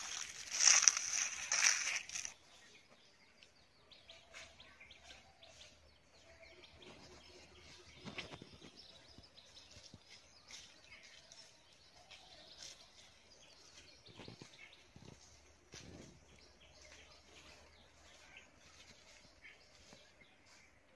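Bare feet crunching and rustling through dry leaf litter, loud for the first couple of seconds, then fainter scattered rustling with a few sharp cracks. Faint bird calls in the background.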